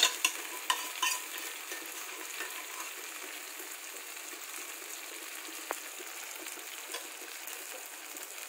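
Kheema-stuffed tomatoes and minced meat sizzling steadily in oil in a wok on low heat, with a few sharp clicks of a spoon against the pan in the first second or so.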